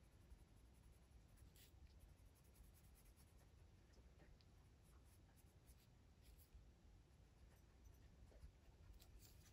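Very faint scratching of an oil-based Brutfuner colored pencil shading on paper, barely above room tone.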